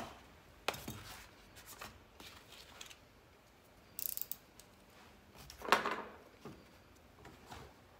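Handling noise from tools and a foam insert being moved around in a plastic tool organizer case: scattered light clicks, scrapes and rustles, the loudest a short knock about six seconds in.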